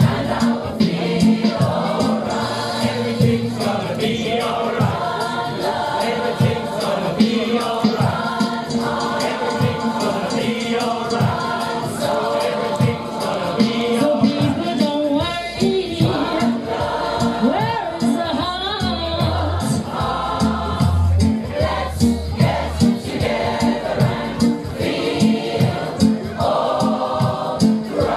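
Large community choir of mostly women's voices, with some men, singing a song in harmony over a steady beat.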